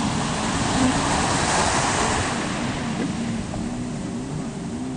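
Surf and wind rushing over the microphone, with a steady low hum underneath. The rush swells about a second and a half in and eases toward the end.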